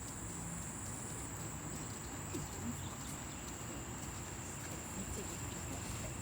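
Steady rush of running water, with a constant high-pitched tone above it.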